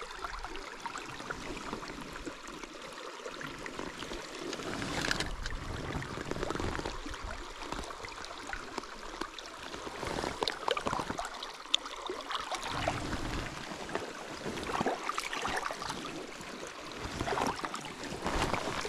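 Shallow river running over rocks, with small irregular splashes as a hand moves a trout in the water to release it.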